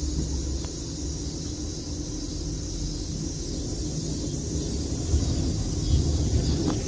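A car engine running steadily: a low rumble with a steady hiss above it.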